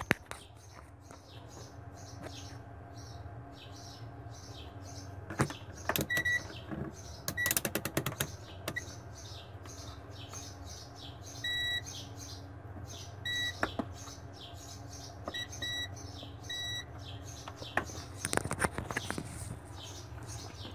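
Digital multimeter's continuity buzzer giving about seven short beeps, one a little longer near the middle, as the probes touch points on a weighing-scale circuit board in a hunt for a short. Sharp clicks from handling the probes and wires come in two clusters, over a steady low hum.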